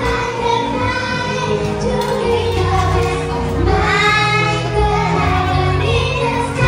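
A group of young children singing a song together over a backing music track with a held bass line.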